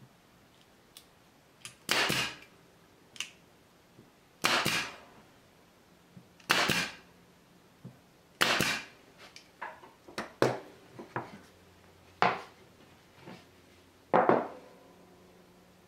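A 23-gauge pin nailer firing 1-inch brads into a stack of three plywood panels, about seven sharp shots roughly two seconds apart. Lighter clicks fall between the shots.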